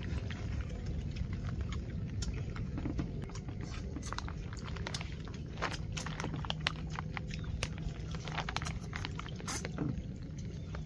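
Several people eating with chopsticks from bowls: many small, irregular clicks of chopsticks against the bowls, over a steady low rumble.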